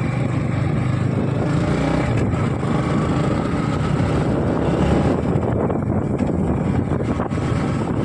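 Yamaha MT-15's single-cylinder engine running steadily at low speed in second gear, with wind noise on the helmet-mounted microphone.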